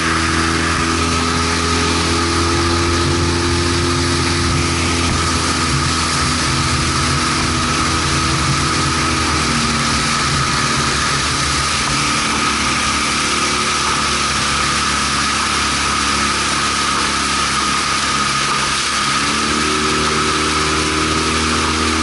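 Outboard motor of a boat running steadily under way; its pitch drops a little after halfway through as the throttle eases, and climbs back near the end.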